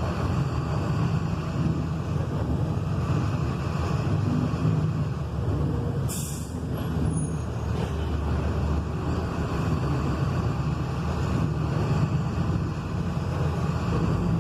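Volkswagen 17.230 EOD truck's diesel engine running steadily, with a short hiss of compressed air about six seconds in, as from the air brake or air system.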